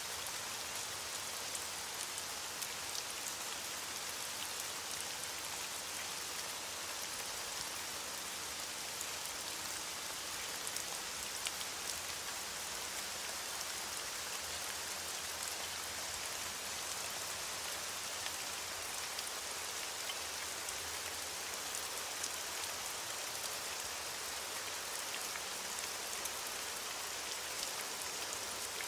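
Steady heavy rain, an even hiss with scattered small drop ticks.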